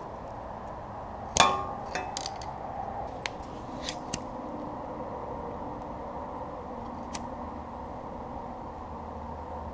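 Metal clinks from handling tools and recoil-starter parts: one sharp clank with a brief ring about a second and a half in, then several lighter clicks and taps, over a steady low hum.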